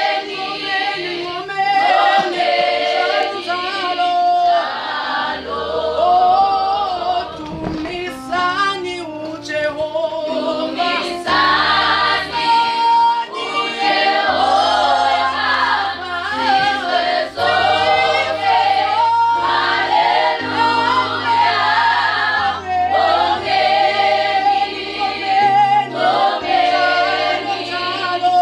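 A youth choir singing a gospel song in harmony, with a keyboard playing steady low bass notes underneath from about five seconds in.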